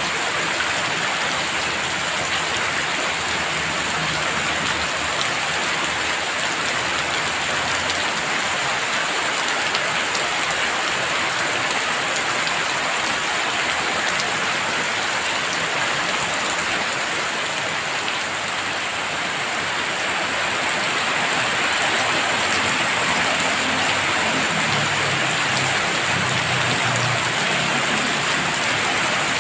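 Heavy rain falling steadily in a dense, even downpour, growing slightly louder about two-thirds of the way through.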